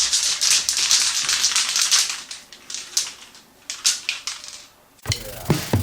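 High build primer being sprayed onto car body panels: a spray hiss, unbroken for about two seconds and then in shorter spurts, that stops about four seconds in. Music comes in near the end.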